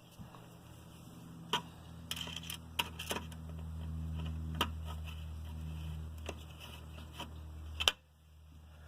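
Screwdriver driving a motherboard mounting screw into a metal server case: scattered clicks and taps of the tool and screw on metal, with a loud click near the end. A low steady hum underneath cuts off suddenly at that last click.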